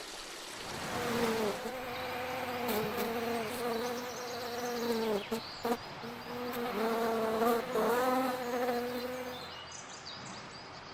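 A flying insect buzzing, its pitch wavering up and down, with a short break about five seconds in, fading out near the end.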